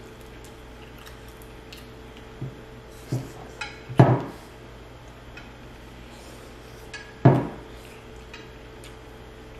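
Tableware knocking and clattering: a few knocks build to a loud clatter about four seconds in, and another loud knock comes about seven seconds in.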